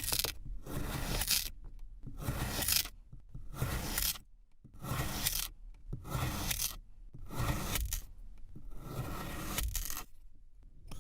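Kinetic sand being worked in about eight separate grainy strokes, each under a second long, coming roughly once a second.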